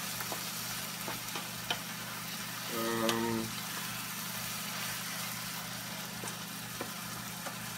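Ground bison sizzling in a frying pan, with a wooden spoon scraping and clicking against the pan as it is stirred. A brief steady pitched tone sounds about three seconds in.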